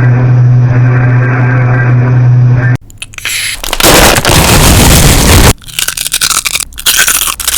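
Loud electronic alarm audio from a homemade EAS-style alert: a steady low buzzing drone cuts off abruptly about three seconds in. Harsh static-like noise and choppy bursts follow.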